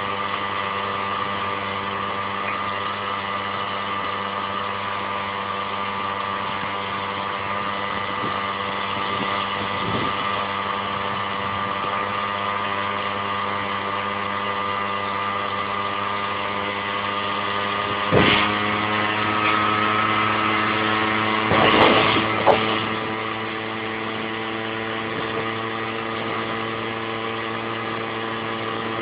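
Vehicle engine running steadily with an even hum, its pitch rising a little about two-thirds of the way through. A few sharp knocks or bumps come near the end.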